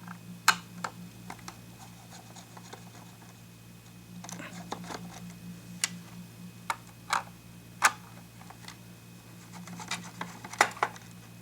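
Screws being worked out of a vintage Panasonic R-314 radio's case with a screwdriver: scattered sharp clicks and short scrapes, over a low steady hum.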